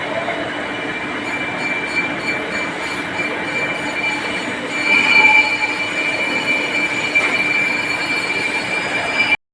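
Metal being machined on a lathe: a steady high-pitched squeal of the cutting tool against the turning steel, swelling about five seconds in and stopping abruptly near the end.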